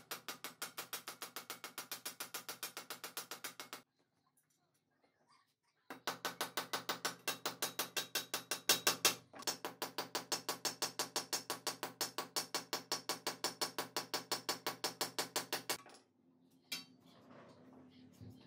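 Small hammer tapping rapidly and evenly on a steel rivet through a hoe blade, peening it over, with the steel ringing under each blow. The tapping stops for about two seconds a few seconds in, then resumes and stops a couple of seconds before the end.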